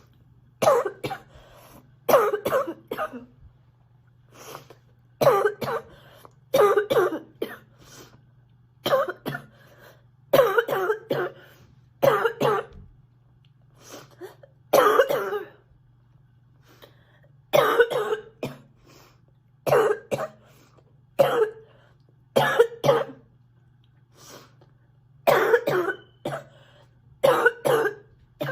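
A sick girl coughing over and over, in fits of two or three coughs that come every second or two.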